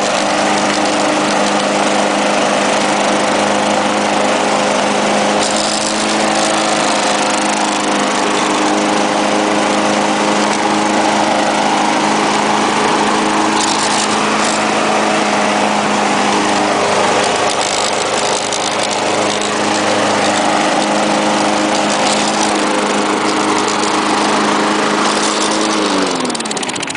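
Lawn-Boy walk-behind lawn mower engine running steadily under load; near the end its pitch falls as the engine slows down.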